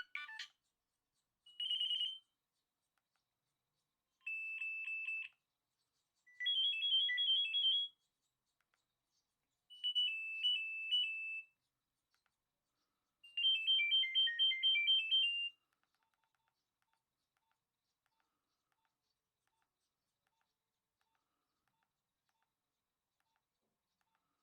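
Nokia 3510i mobile phone playing short snatches of high-pitched ringtone melody, five in a row, each a second or two long with short pauses between. Faint, regular ticking follows in the last several seconds.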